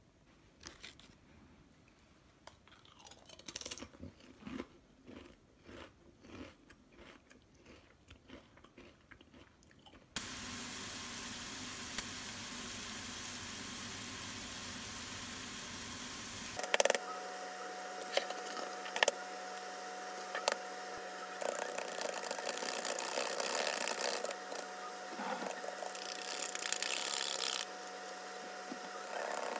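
Crisp potato chips being crunched and chewed, in irregular bites. About ten seconds in, this gives way to thin pork belly slices sizzling steadily in a frying pan. After that comes kitchen clatter: sharp clinks and scrapes of utensils and containers over a steady hum.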